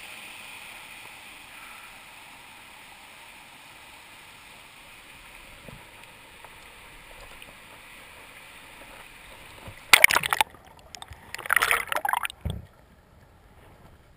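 Steady rush of river water over rapids, slowly fading. About ten seconds in, loud splashing right at the microphone in two bursts and a dull knock, then a muffled, quieter underwater sound.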